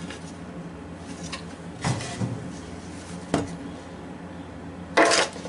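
Wooden boards being handled and taken out of a metal dovetail jig: a few soft knocks and rubs, with a sharper wooden knock near the end.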